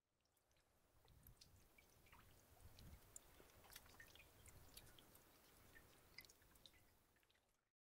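Faint trickle of a shallow stream, with scattered small drips and clicks of water. It swells up over the first second or two and fades out near the end.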